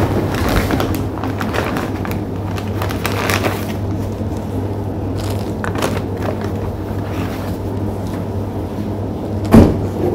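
Handling noise from a covered phone microphone: rubbing and light clicks over a steady low hum, with one loud knock about nine and a half seconds in.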